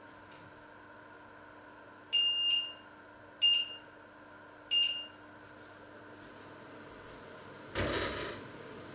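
Touch controls of a glass-ceramic electric cooktop beeping as the heat setting is changed. There are three high beeps: the first is the longest, then two short ones about a second apart. A brief burst of noise follows near the end.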